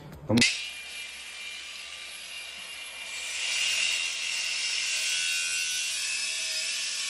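Cordless Worx power tool cutting and scraping at tile, cement and caulk behind a toilet, a steady rasping sound with a faint high whine that gets louder about three seconds in. A short knock comes just at the start.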